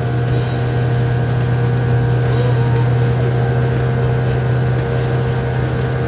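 British Seagull two-stroke outboard motor running steadily at constant speed, a low even hum with no change in pitch.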